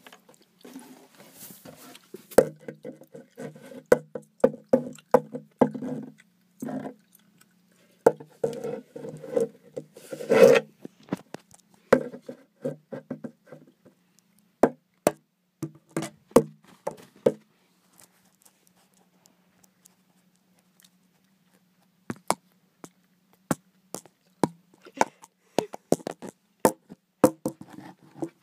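Handling noise close to the microphone: irregular knocks, taps and rubbing as toys and the phone are moved about, busy in the first half, then a short lull and sharper scattered clicks.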